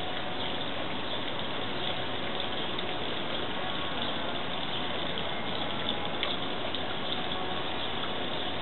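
Backyard fountain with water running steadily, an even, unbroken rush.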